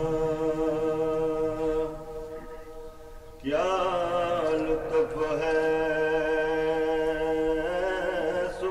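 A man's voice reciting in a slow, melodic chant into a microphone, holding long steady notes. The chant breaks off about two seconds in and resumes about three and a half seconds in with a rising note before settling into more held notes.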